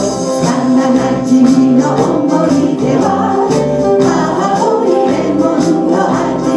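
A woman and a man singing a Japanese song into microphones over live band accompaniment with a steady percussion beat, amplified through the PA.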